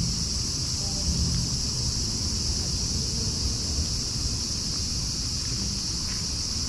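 Steady outdoor night ambience: a constant, even high hiss with a low rumble underneath.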